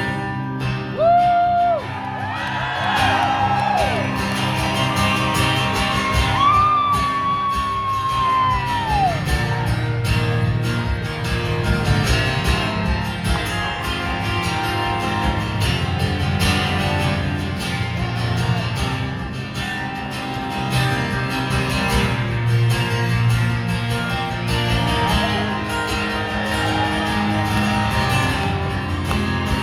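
A live country band plays an instrumental break, with a lead guitar bending and sliding held notes over steady bass and drums.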